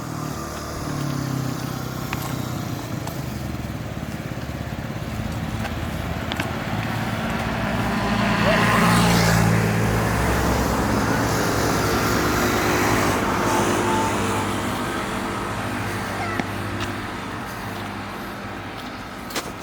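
A motor vehicle's engine passing by on the road, growing louder to a peak about halfway through and then fading away.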